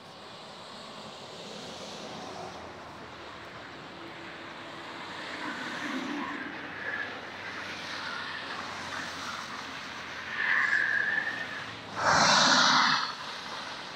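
Traffic passing beneath on a multi-lane highway: steady tyre and engine noise that swells as a truck and a car go under. Near the end, a brief high tone and then a loud burst of hiss about a second long.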